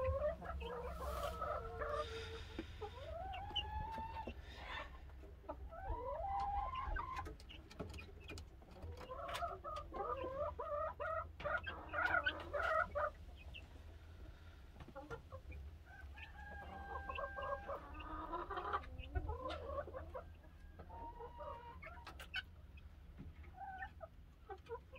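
Five-week-old chicks, mostly Leghorns, calling in bursts of short chirps and cheeps, many sliding up or down in pitch, with pauses between the bursts. A steady low rumble and scattered light clicks sit underneath.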